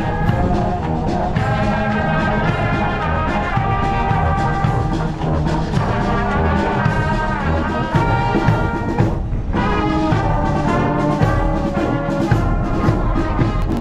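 Brass band playing a tune, with trombones and trumpets.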